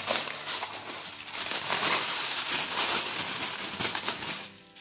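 Aluminium foil crinkling and crackling as it is peeled off the rim of a bowl and lifted away, easing off near the end.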